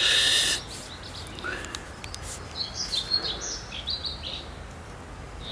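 Small birds chirping in the background, scattered short high calls, after a short breathy hiss in the first half second.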